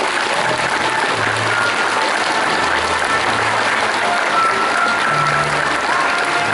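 Audience applause over music, with bass notes and short melody notes showing through the clapping.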